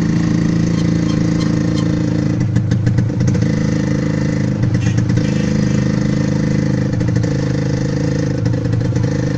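Motorcycle engine of a tricycle running steadily while driving, heard from inside the sidecar. The sidecar rattles in short clusters a few seconds in and again about halfway through.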